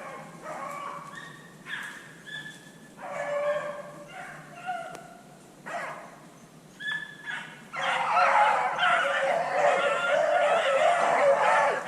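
A pack of beagles baying on a running rabbit's trail: scattered single calls at first, then from about eight seconds in many dogs give tongue together in full cry.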